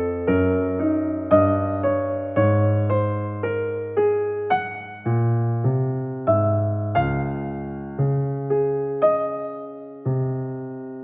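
Slow, gentle electric piano music: soft notes and chords struck about once every half second to a second, each fading away, with a low bass note changing every couple of seconds.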